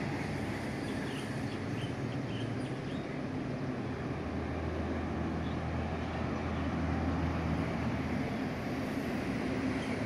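Steady low mechanical hum and rumble of outdoor urban background noise, swelling slightly midway, with a few faint high chirps in the first three seconds.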